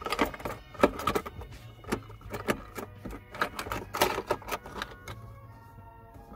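Keys clinking and the plastic of a small armrest storage compartment clicking and knocking as the keys are worked into it. The rapid clatter fills the first five seconds or so, then dies down as the little lid is pressed shut.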